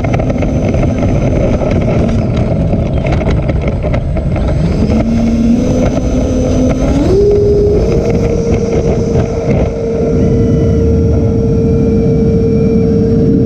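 Twin 90 mm electric ducted fans of a Freewing A-10 RC jet spooling up on the takeoff roll: their whine climbs in steps over a few seconds and then holds steady. Under it a loud rough rumble and rattle comes from the model rolling across grass.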